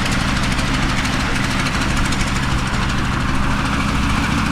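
Westland Lysander's Bristol Mercury nine-cylinder radial engine running with a steady, even drone.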